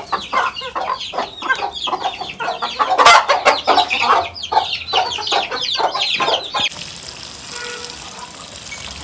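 Chickens clucking and calling busily, many short calls in quick succession. About seven seconds in, this cuts to water running steadily from a tap into a bucket of rotis.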